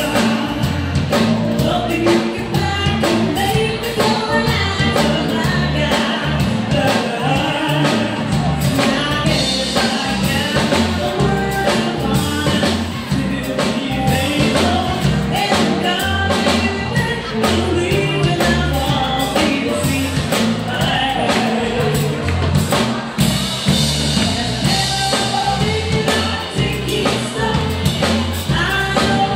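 Live band playing an upbeat song, a singer's voice over a drum kit keeping a steady beat.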